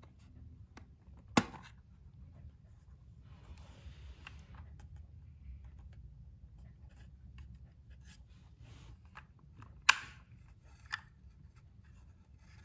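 Light plastic clicks and rustling as a 35mm film cartridge and a plastic Kodak M35 film camera with its back open are handled. Two sharp clicks, one about a second and a half in and one near ten seconds, then a smaller click about a second later.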